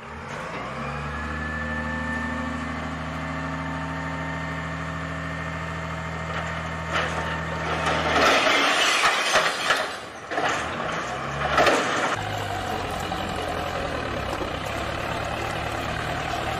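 Vehicle engine running steadily, heard from inside the vehicle. From about seven to twelve seconds in, the drone gives way to a louder rushing noise with a few sharp spikes, and then the steady engine returns.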